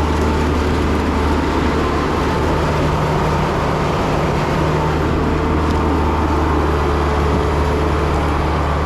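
Concrete pump's engine running steadily under load while pumping, a loud constant low drone.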